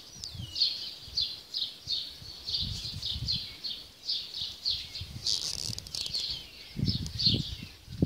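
A flock of perched birds chirping: short high calls repeating about twice a second from several birds at once, over a low intermittent rumble.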